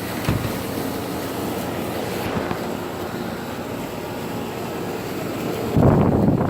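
Air conditioners running outdoors: a steady fan and compressor noise, joined by a louder rush of low noise near the end.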